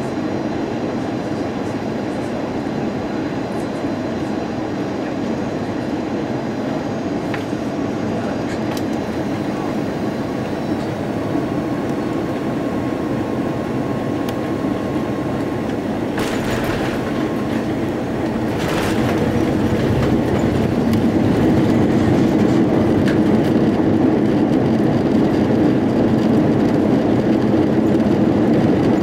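Airbus A330 cabin noise on landing: a steady rumble of engines and airflow, with two short jolts about 16 and 19 seconds in as the wheels touch the runway. From about 20 seconds in the rumble grows louder as the jet rolls out on the runway.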